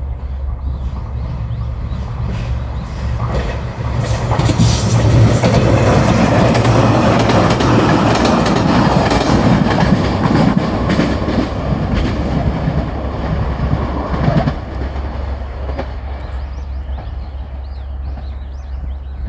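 Diesel train passing over a level crossing, its wheels clattering over the rail joints under a steady low engine drone. It swells about four seconds in, stays loudest for several seconds, then eases off.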